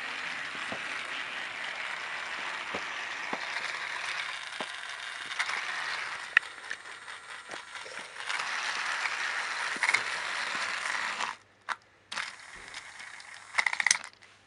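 Battery-powered Trackmaster toy engine's motor and gearbox whirring steadily as it runs along plastic track, with light clicks at the track joints. The whirring stops about eleven seconds in, followed by a few clicks.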